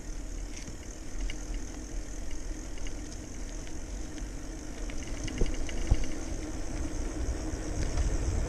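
BMX bike coasting downhill on pavement: tyre rumble and wind buffeting the microphone, with scattered light clicks, getting louder toward the end as it picks up speed.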